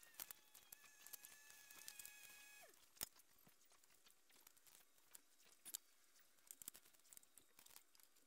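Near silence, broken by a few faint short clicks and taps of pliers and metal panel connectors handled on a workbench, with faint thin high tones during the first three seconds.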